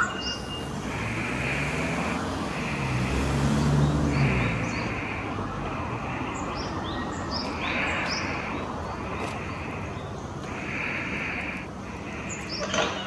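Small birds calling outdoors: a hazy call about a second long repeats every two to three seconds, with short high chirps between. A car passes in the first few seconds.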